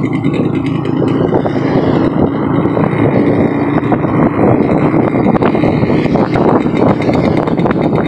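Small motorcycle engine running steadily while being ridden.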